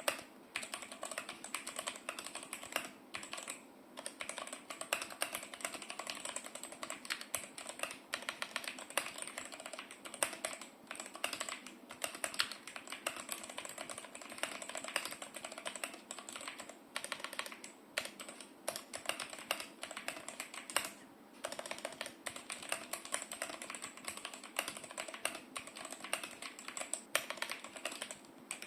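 Fast continuous typing on a Vortex Series GT-6 mechanical keyboard, a dense run of key clicks that pauses briefly a few times, picked up by a phone microphone.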